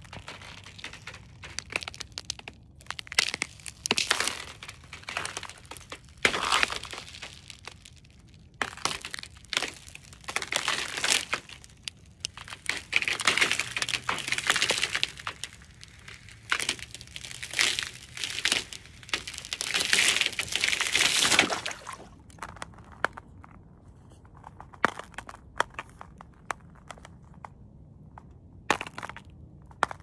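Thin ice cracking and crunching under boots stepping slowly across it, a mixed sound effect of ice splitting under each step. There are sharp cracks and long runs of crackling, with only scattered sharp cracks near the end.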